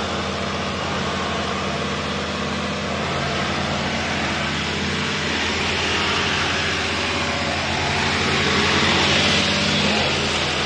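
New Holland 3630 tractor's diesel engine running steadily in a muddy sugarcane field, growing louder from about six seconds in.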